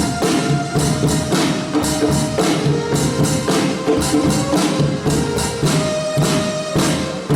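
Instrumental music with a percussion beat and held tones, no voice.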